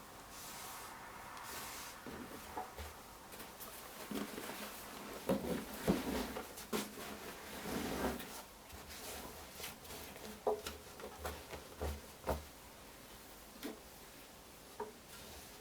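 Miele Professional WS 5426 washing machine making irregular knocks and clunks, some louder than others.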